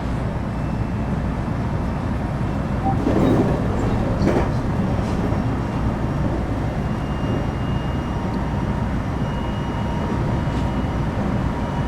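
Electric commuter train running along the line, heard from inside the leading car: a steady rumble of wheels on rail, with two louder knocks about three and four seconds in.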